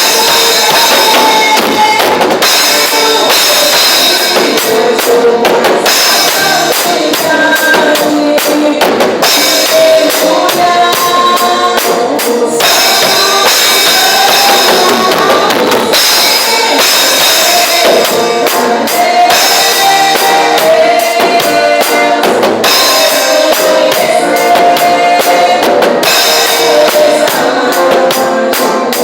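Worship band music with a drum kit and tambourine playing along with sustained melodic instruments.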